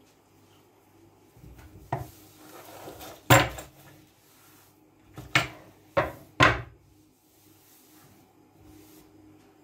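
A cloth rubbing over a kitchen worktop, then a handful of sharp knocks as things are handled and set down on the counter, three of them close together a little past the middle.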